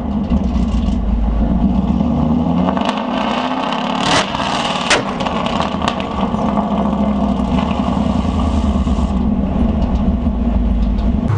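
S550 Ford Mustang's exhaust, heard from right behind the tailpipes as the engine is revved hard: the revs climb about two to four seconds in, a few sharp cracks come around four to six seconds in, and then the engine runs on at a steady note.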